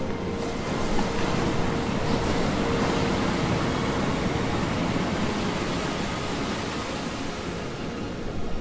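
Ocean waves and surf washing steadily.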